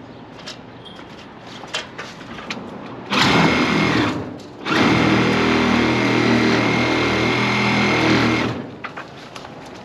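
Handheld electric power tool running at a steady speed in two bursts: a short one about three seconds in, then a longer one of about four seconds. Light knocks and handling clicks come before it.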